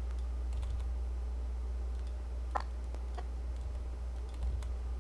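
A handful of separate computer mouse and keyboard clicks, the loudest about two and a half seconds in, over a steady low hum.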